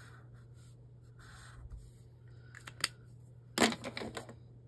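Felt-tip highlighter rubbing across planner paper in short strokes, then a few sharp plastic clicks in the last second and a half as the pen is capped and put down.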